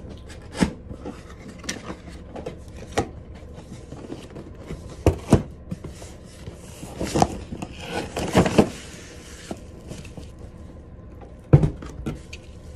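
Cardboard box being opened and unpacked: scraping and rubbing of cardboard and foam packing, with scattered knocks and a stretch of sliding and rustling about seven to nine seconds in. A sharp knock near the end is the loudest sound.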